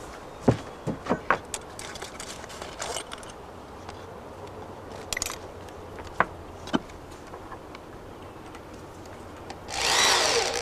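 Scattered light knocks and clinks as cedar wall panels and a wooden top plate are handled and set in place. Near the end a power drill starts up briefly, driving a screw into the top plate.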